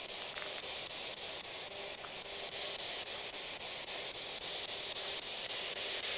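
Spirit box (radio-sweep ghost box) scanning through stations: steady static hiss, chopped by regular quick breaks several times a second as it sweeps.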